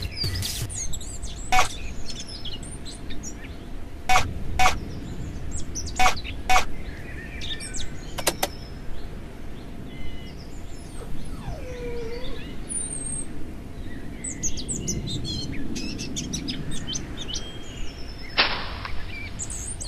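Birds chirping and tweeting over a soft, steady outdoor background, with several sharp clicks in the first half and a short hiss near the end.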